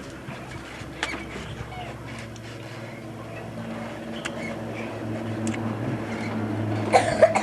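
A vehicle engine humming steadily and growing gradually louder. A brief loud vocal cry comes near the end.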